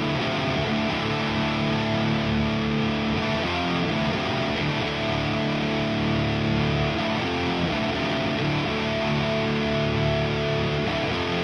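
Distorted electric guitar chords from a 1980 Gibson Les Paul Custom with stock T-Top humbuckers, through a Diezel VH4 head and a 4x12 cab with Celestion Vintage 30 speakers. The chords ring out and change every few seconds.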